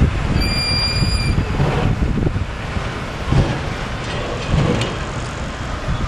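Wind buffeting the microphone in uneven gusts, with a low rumble. A brief, steady, high-pitched beep or whistle sounds for about a second near the start.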